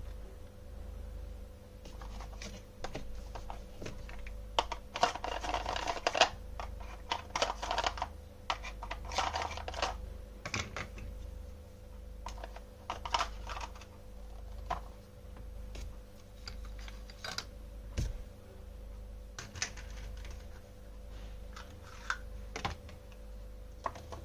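Toy kitchen pieces being handled and cut: irregular small clicks and taps, with a couple of short crackly, rustling clusters about a quarter and two-fifths of the way in, over a steady low hum.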